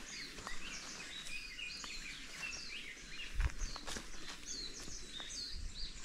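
Birds chirping, a busy run of short high notes, over a hiker's footsteps on a forest trail, with one heavier thump about three and a half seconds in.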